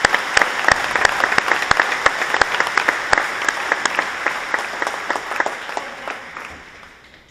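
Audience applauding, with loud, sharp claps from people close by over the wider clapping of the crowd. The applause dies away near the end.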